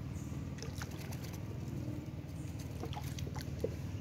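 Water splashing and dripping beside a wooden canoe as a fishing longline is handled and pulled from the water, with scattered small clicks over a steady low hum.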